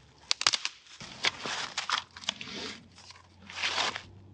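Dry leaf litter crunching and twigs crackling as a dead branch is handled and set down across the forest floor. A quick run of sharp cracks comes about half a second in, followed by several rustling bursts.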